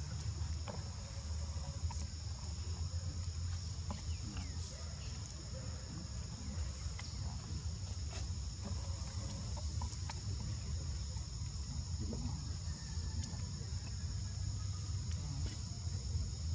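Steady insect chorus: a continuous high-pitched drone in two close pitches, over a low steady rumble, with a few faint ticks.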